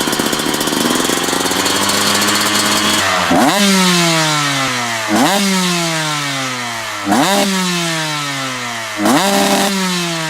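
Motorcycle engine revved over and over. After a few seconds of rough running that climbs in pitch, the throttle is blipped about every two seconds, four times; each time the pitch jumps up and then sinks slowly back.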